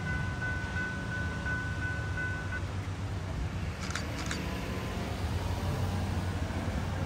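Electronic crossing bell (General Signals type 3) ringing at about three dings a second, then falling silent about two and a half seconds in. Under it runs a steady low vehicle rumble, and two short high chirps come about four seconds in.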